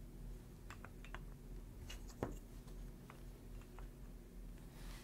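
Faint, scattered clicks and light knocks of thin wooden KEVA planks being set down against each other, with one sharper knock about two seconds in.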